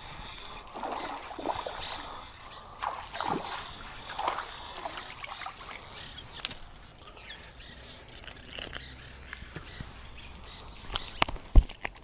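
Hooked fish splashing at the water's surface while it is reeled in, with irregular sloshes and splashes. Near the end come a few sharp clicks and one loud knock as the fish is lifted out.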